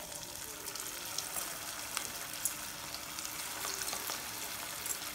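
Corn tikkis (corn and semolina patties) deep-frying in hot oil in a kadai over a high flame: a steady sizzle dotted with small, sharp crackles and pops.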